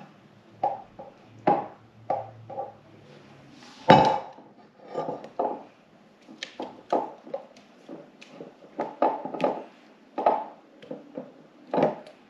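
A utensil knocking and scraping against a cooking pot as thickened coconut pudding is transferred into a glass baking dish: a string of short clatters, the loudest about four seconds in.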